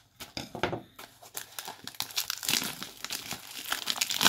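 Plastic wrapping on a 2024 Topps Series 1 trading-card value box crinkling and tearing as it is pulled off by hand, a dense irregular crackle that ends in a sharp rip.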